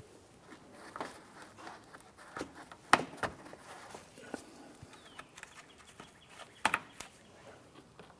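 Plastic push-pin fasteners being pressed into a car's plastic fender liner, making a series of sharp clicks and taps. The loudest click comes about three seconds in, and a quick cluster of clicks follows a little before the end.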